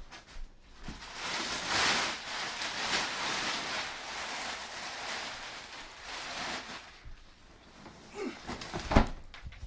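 Thin plastic mattress wrapping rustling and crinkling as it is pulled off and bunched up. Near the end comes a single heavy thump as the mattress is flipped over and dropped onto the floor.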